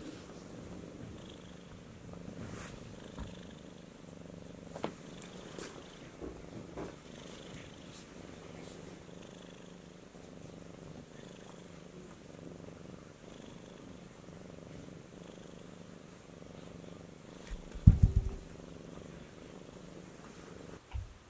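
Domestic cat purring steadily, a low rhythmic rumble. About eighteen seconds in, a short cluster of dull heavy thumps stands out, fitting the balanced apples dropping onto the carpet.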